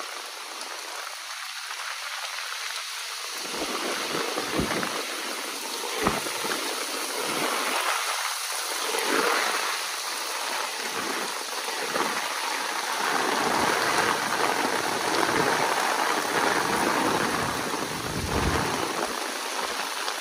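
Heavy downpour of rain: a dense, steady hiss that swells louder in the second half, with a few brief low knocks in the first third.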